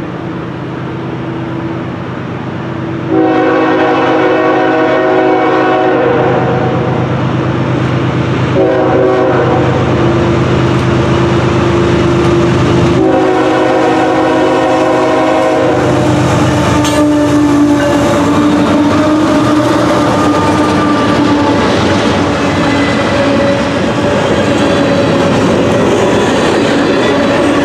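Diesel freight locomotive sounding its multi-chime air horn in three blasts, long, shorter, long, as it approaches. The locomotive then passes close by, followed by a steady rumble and clickety-clack of freight car wheels rolling over the rail joints.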